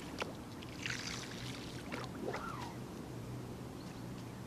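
A double-handed salmon fly rod and shooting-head line in a cast: a brief hissing rush about a second in as the line comes through the air, over a steady low hum.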